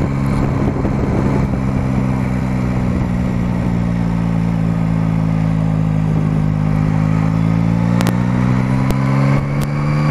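Yamaha Tracer motorcycle engine running steadily while the bike is ridden. Its note dips slightly, then climbs slowly toward the end as it gathers speed. Wind rushes over the microphone throughout, and a few brief clicks come near the end.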